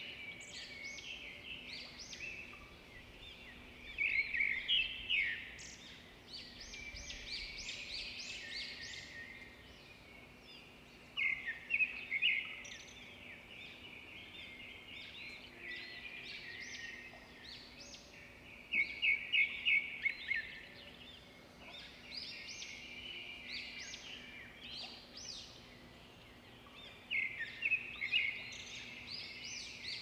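Small birds chirping and twittering throughout, with louder bursts of quick trilled notes roughly every seven or eight seconds. A faint steady low hum sits underneath.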